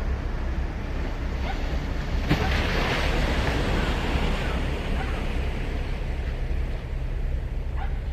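Surf on a sandy beach: a wave breaks a little over two seconds in and washes up the shore, fading over the next few seconds, over a steady low rumble of the sea.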